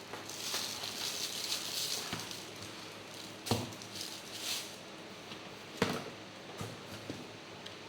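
Thin plastic polybag crinkling and rustling as it is handled and opened, with two sharp knocks from the plastic parts inside, one midway and one about two seconds later.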